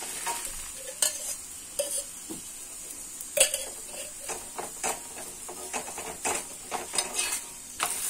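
Steel spatula scraping and tapping irregularly on a cast-iron tawa as it spreads oil over a frying paratha, with the oil sizzling steadily underneath. The sharpest scrape comes about three and a half seconds in.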